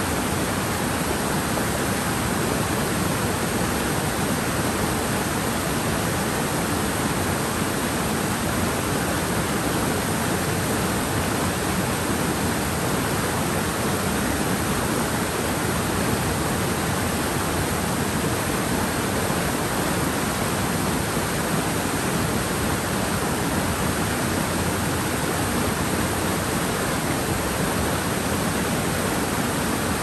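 Mountain stream flowing: a steady, even rush of water that does not change.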